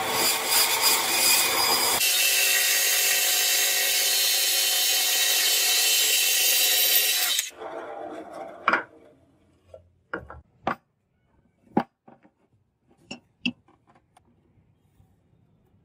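A power tool runs loudly with a steady whine and stops abruptly about seven and a half seconds in. A few separate sharp taps follow in quiet.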